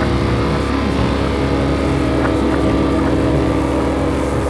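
Blackened thrash metal: heavily distorted electric guitars holding a steady, droning chord over a dense low end.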